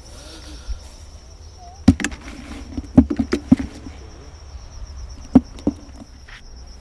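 Insects chirring in a steady, high, finely pulsing drone, with several sharp knocks and taps about two, three and five and a half seconds in.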